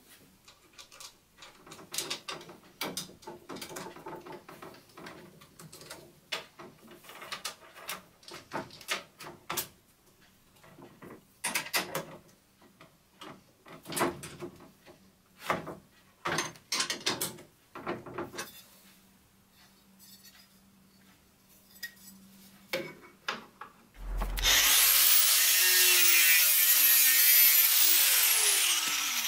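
Steel saw chain links rattling and metal parts clicking as the chain is fitted onto a chainsaw bar and the bar nuts are tightened with a wrench. About 24 seconds in, a handheld angle grinder starts and runs loudly, its pitch dipping and rising as it is worked.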